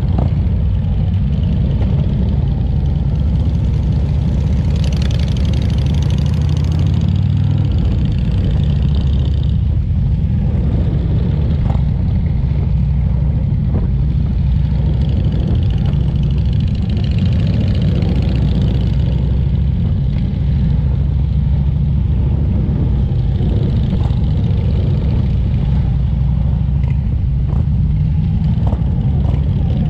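Motorcycle engines running steadily at road speed, heard from on board a motorcycle riding in a group; the engine note shifts about seven seconds in.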